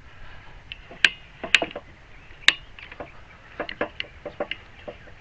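Irregular sharp clicks and knocks of hard parts on a home-built bee box lifter being handled and fastened, the loudest about a second in, at a second and a half, and at two and a half seconds, followed by a run of lighter taps.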